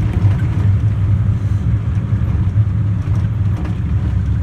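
Small mountain train running along the line, heard on board as a steady low rumble.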